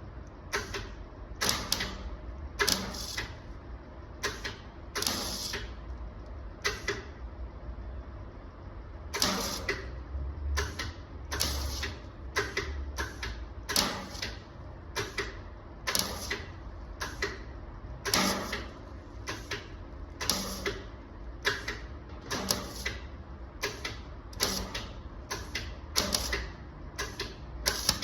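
Welder laying a run of tack welds on thin sheet metal: short bursts of the arc, each a fraction of a second long, repeated irregularly about once a second.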